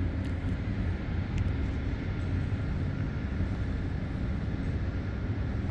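Steady low background rumble, with a couple of faint ticks in the first second and a half.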